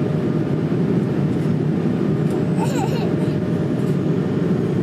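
Airbus A220's Pratt & Whitney geared turbofan engines at climb power, heard as a steady, even noise inside the cabin. A brief high voice cuts in a little past halfway.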